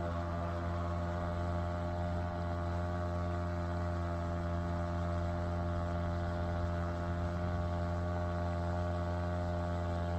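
Small petrol outboard motor running steadily at constant throttle with the inflatable boat under way, a low even hum that holds one pitch.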